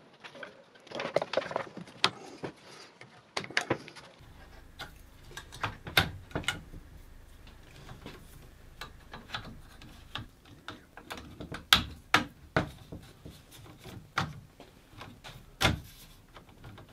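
Irregular plastic clicks and clatters from the links of a cable drag chain being handled and clipped onto a CNC machine's gantry.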